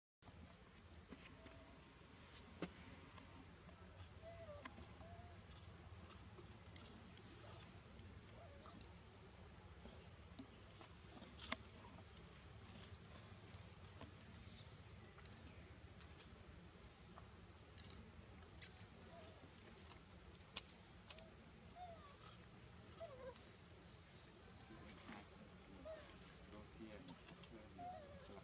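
Insects chirring in a steady high chorus, one pitch held continuously and a slightly lower one pulsing on and off, with faint short squeaks and scattered light clicks over it.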